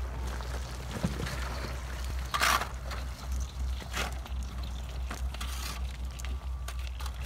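Paddles splashing and crunching through thin ice as an inflatable rescue boat is paddled out, over a steady low rumble. The loudest moment is a short rush of noise about two and a half seconds in.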